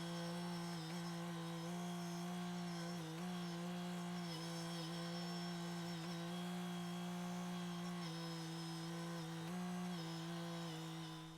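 Husqvarna 572XP two-stroke chainsaw running at high revs, holding a steady pitch with a few brief dips as it works through big oak rounds, then fading out near the end.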